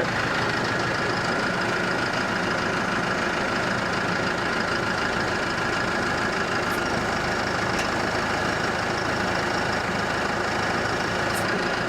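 New Holland tractor's diesel engine running steadily.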